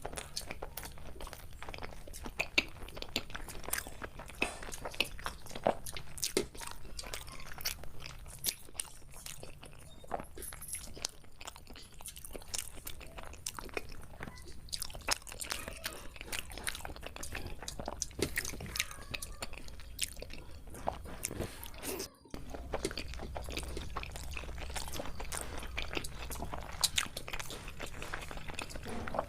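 Close-up chewing and biting of chicken biryani, with frequent irregular crunches and wet mouth clicks.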